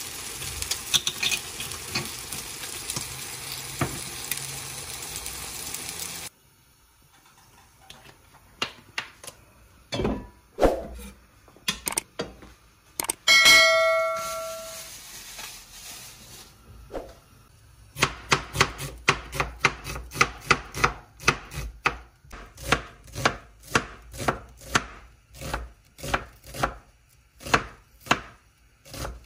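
Eggs and tomato sizzling in a frying pan with a steady hiss, stopping abruptly about six seconds in. A few scattered knocks and a short ringing chime follow, then a kitchen knife chops onion on a wooden cutting board in regular strokes, about two a second.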